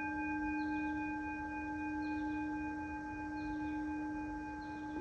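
Singing bowl ringing on, a steady tone with several higher overtones held throughout and fading only slightly.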